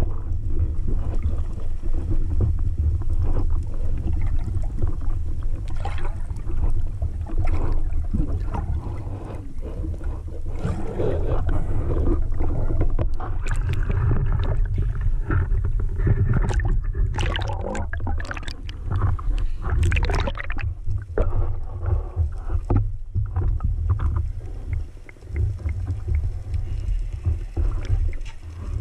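Muffled low rumble and rush of water moving past an underwater camera housing as a freediver swims. About halfway through comes a stretch of bubbling and splashing.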